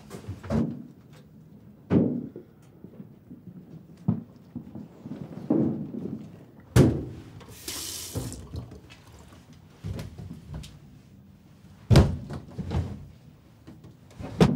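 Dull thuds and knocks of household objects being handled, every second or two. Just past the middle a kitchen tap runs with a hiss for about a second.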